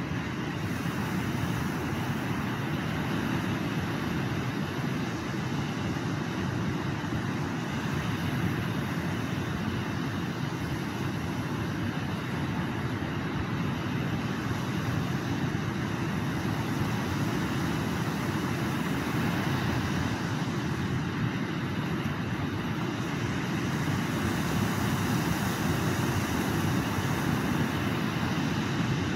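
Steady noise of a running vehicle.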